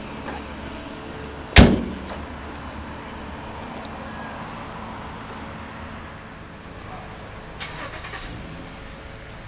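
Car door of a 1978 Volkswagen Beetle convertible slammed shut about one and a half seconds in: a single loud bang with a short ring. A brief rattle of small clicks follows near the end.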